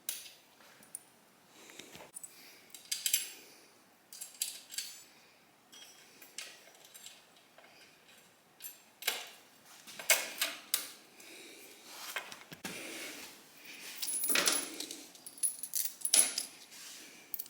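Metal parts and hand tools clinking, clicking and scraping in irregular short bursts as motorcycle exhaust parts are fitted and bolted on, with a few brief high metallic rings near the end.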